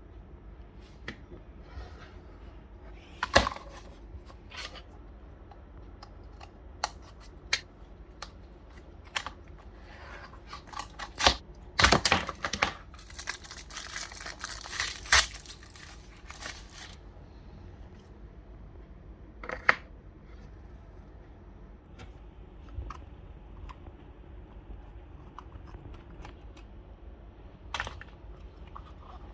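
Hands unboxing toys: scattered clicks and taps of plastic packaging being handled, with a few seconds of tearing and crinkling wrapper near the middle.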